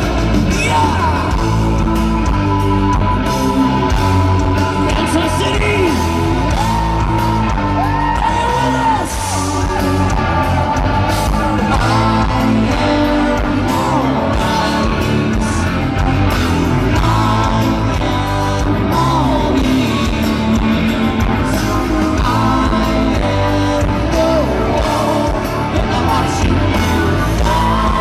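Live heavy metal band playing loud through a festival PA: electric guitars, drums and sung vocals, heard from the crowd.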